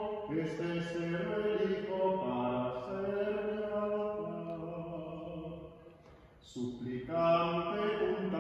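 Voices singing a slow hymn in long held notes, with a short pause for breath about six seconds in before the singing resumes.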